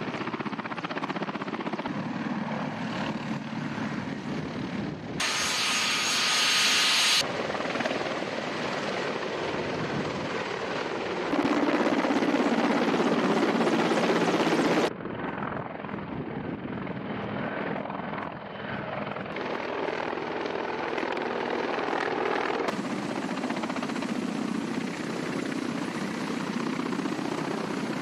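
Military helicopters, Mi-8 and Mi-24 types, with their turbine engines and rotors running in a string of separate clips. The sound changes abruptly at each cut, and is loudest about five to seven seconds in and from about eleven to fifteen seconds.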